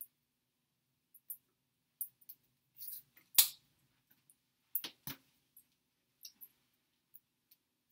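Scattered soft clicks and taps of hands meeting and brushing while someone signs, with two sharper slaps of hand on hand about three and a half and five seconds in.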